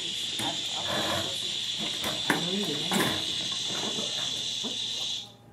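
A steady high-pitched tone that cuts off suddenly near the end, with quieter voices beneath it.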